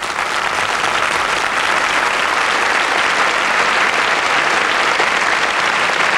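Theatre audience applauding steadily at the end of a dance number.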